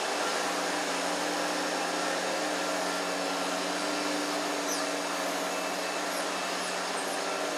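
A loud motor-driven machine running steadily, a whooshing noise with a constant hum in it. From about the middle on, a few short high chirps sound over it.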